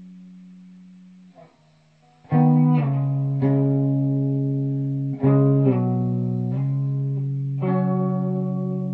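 Electric guitar played slowly: a held note dies away, then about two seconds in a loud low note is plucked and several more follow a second or two apart, each left to ring out and fade.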